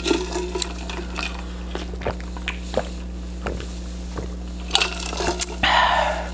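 A person drinking water from a tumbler: small gulps, swallows and mouth clicks, with a short breathy noise near the end as the cup comes down.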